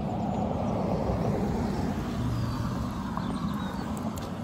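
Road traffic: a vehicle passing, a steady rushing noise that swells about a second in and slowly fades.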